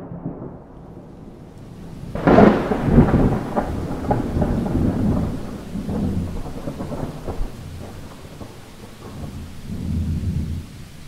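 A thunderclap breaks about two seconds in and rolls on in low rumbles that swell again twice, over a steady hiss of heavy rain.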